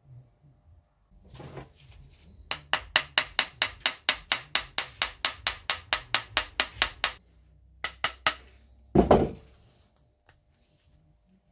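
Hammer striking a WW2 German bayonet and scabbard that have rusted fast together, to work them loose. It is a quick, even run of about two dozen sharp taps, about six a second, for some four seconds, then three more taps and a single heavier knock.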